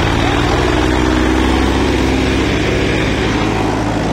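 Massey Ferguson 241 DI tractor's diesel engine working hard under heavy load as it pulls a stuck tractor out on a chain. It runs at steady revs with an even, rapid firing beat, easing slightly near the end.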